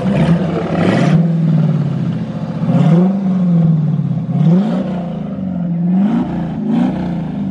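Dodge Challenger's V8 running with its cat-back exhaust removed, so it exhausts straight out after the catalytic converters. The throttle is blipped about five times, the engine pitch rising and falling with each rev.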